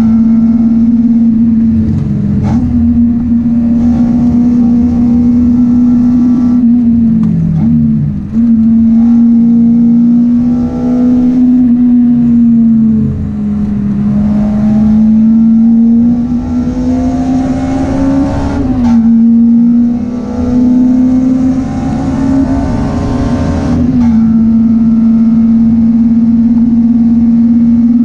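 Honda Integra Type R (DC5) four-cylinder engine running hard at high revs on track, heard from inside the cabin. Its note holds a steady high pitch, with three brief dips in loudness and pitch about a third of the way in, around halfway and about two-thirds in.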